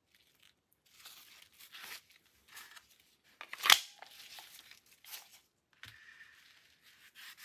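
Gloves rustling and crinkling as they handle a Taurus TX22 pistol, with one sharp metallic click about halfway through and a soft knock near the end as the pistol is set down.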